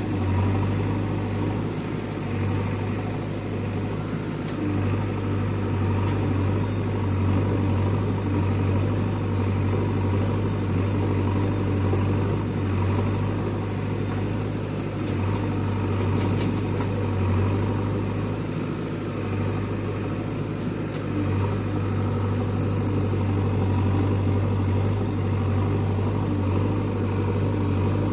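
Diesel engine running steadily at low speed, a constant low hum with small swells in level and no sharp revving.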